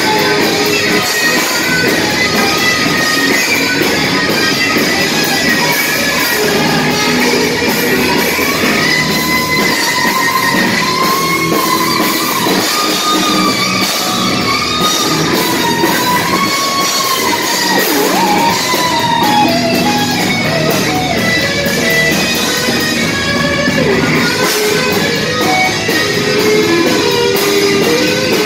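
Live rock band playing loud: an electric guitar lead line with sliding, bent notes over bass guitar and drums.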